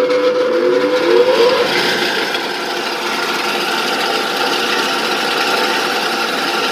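Single-phase 2.2 kW capacitor motor of a wood saw starting up. It hums steadily at first, rises in pitch as it comes up to speed over the first second and a half, then runs steadily.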